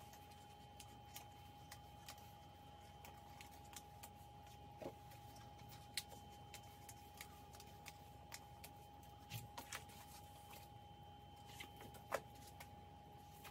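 Faint paper handling with scattered small clicks as binder discs are pressed into the punched edges of a card cover and a 12x12 paper pack, the sharpest clicks about six and twelve seconds in. A faint steady high whine runs underneath.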